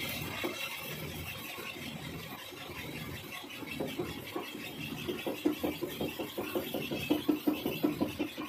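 Metal lathe running while its tool cuts a bevel pinion blank, throwing off stringy chips. A rapid, regular beat builds from about four seconds in and grows louder toward the end.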